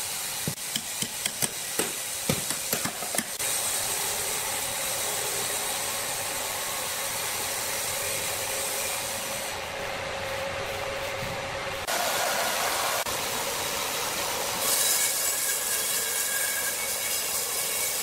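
A hammer striking metal log dogs into the end of a log, about ten quick strikes over the first three seconds. Then steady hissing sawmill machinery noise, which shifts abruptly twice in the second half.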